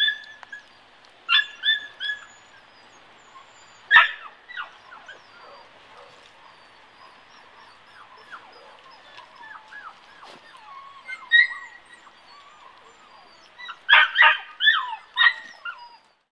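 Golden retriever puppies yipping and barking in short, high-pitched calls while they play. There are a few single yips in the first two seconds, a sharp one about four seconds in, and a quick run of them near the end.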